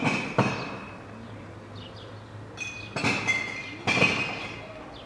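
Sharp knocks, each ringing briefly: a pair near the start and a second cluster about three to four seconds in. Faint high chirps come between them over a steady background.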